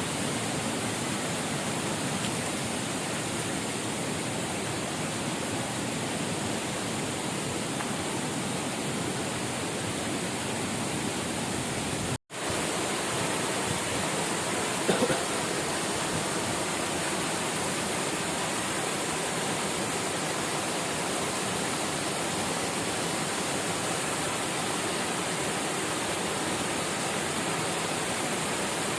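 Steady rush of flowing water, an even hiss with no rhythm. The sound drops out for an instant about twelve seconds in, and a short tap sounds a few seconds later.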